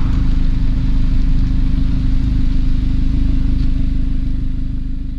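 VW Golf V GTI's 2.0-litre turbocharged four-cylinder idling steadily, heard close at the twin exhaust tips, fading out near the end.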